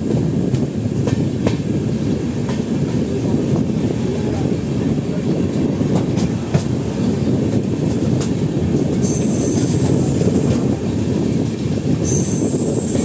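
Indian Railways LHB passenger coach running at speed: a steady loud rumble of wheels on track, with scattered clicks over rail joints. A high thin squeal comes in twice in the last few seconds.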